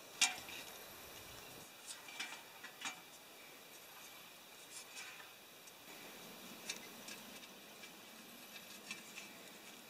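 Light metallic clicks and taps, scattered and irregular, from a hand handling a metal license plate set on a tripod. The sharpest tap comes just after the start.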